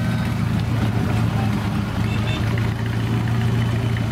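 Motorcycle and trike engines running at low revs in slow parade traffic: a steady low hum.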